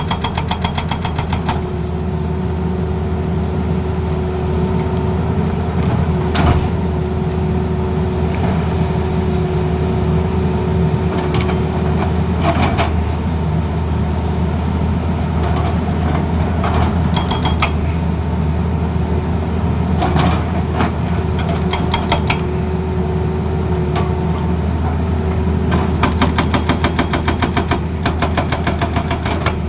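Excavator's diesel engine running steadily, with a steady whine in the first half and scattered single knocks. Near the end comes a run of rapid, evenly spaced clatter.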